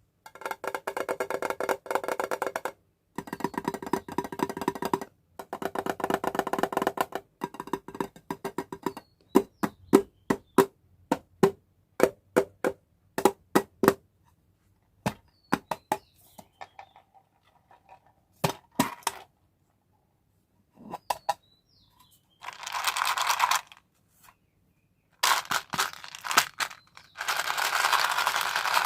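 Small hard-coated candies rattling and pouring in three bursts of rapid clicks, then dropping one at a time with sharp clicks about twice a second that thin out. Near the end, candy packaging crinkles in three stretches.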